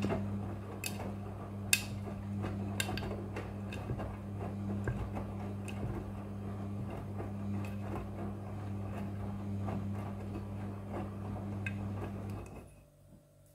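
Front-loading washing machine running, a steady motor hum with scattered clicks and knocks from the load tumbling in the drum. Near the end the hum and clicks stop and it goes much quieter.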